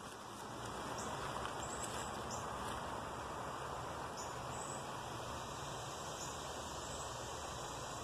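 Steady outdoor ambience: an even hiss with no distinct events.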